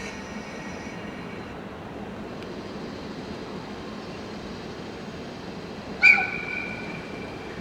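Steady rumble of trains standing at a station platform. About six seconds in, a train horn gives one sharp blast that starts loud and then holds a fading steady tone for about a second and a half.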